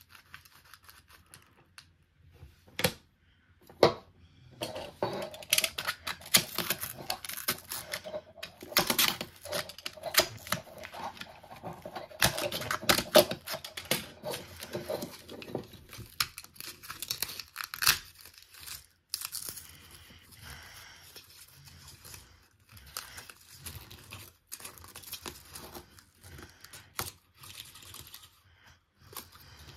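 The paper cone of a small oval 3 W speaker being torn and peeled out of its metal frame by hand. There are a couple of sharp clicks, then a dense stretch of ripping and crinkling, thinning to scattered crackles in the second half. The speaker is a blown one, and the cone is being stripped to get at the voice coil stuck inside.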